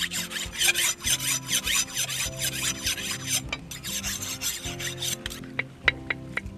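Rapid rasping, scraping strokes for about three and a half seconds, then a few scattered clicks, over background music with sustained tones.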